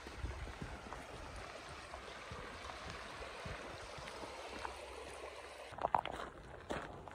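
Shallow, stony stream running steadily over rocks. Near the end it gives way to a few footsteps crunching on a gravel path.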